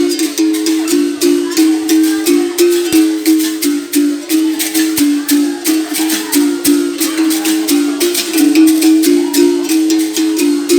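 Gunga, the low-pitched capoeira berimbau, played in a steady rhythm. Each stroke of the stick on the wire rings out and switches between the bow's two notes, open and pressed with the stone. A caxixi rattle shakes along with the strokes.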